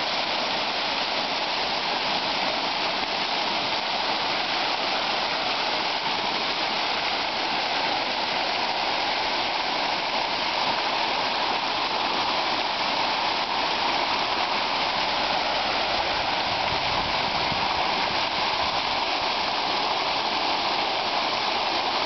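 Many water jets of a public fountain splashing steadily back into the pool, a constant rush of falling water with no break.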